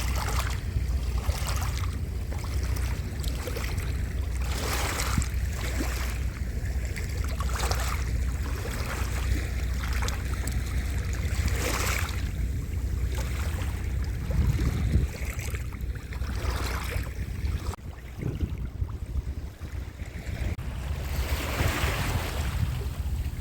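Sea surf: waves washing in and breaking on the shore, swelling and fading every few seconds, over a steady low rumble of wind on the microphone.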